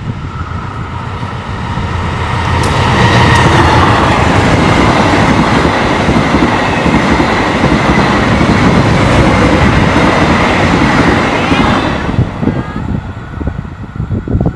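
Diesel-electric locomotive hauling a train of passenger coaches past at close range. The sound grows over the first two seconds, holds as a loud, steady run of wheels on rail while the coaches go by, then breaks up into scattered wheel clacks near the end as the last coaches pass.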